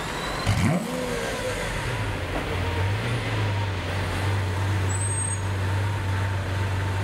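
Lamborghini Aventador's V12 engine, heard at the exhaust: a quick rev about half a second in, rising and falling in pitch, then a steady idle.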